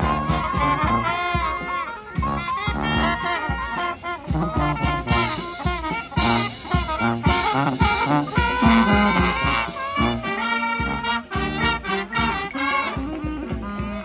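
Street brass band playing live: saxophones, trumpets, trombones and a sousaphone over a drum kit's steady beat, in an upbeat swinging tune.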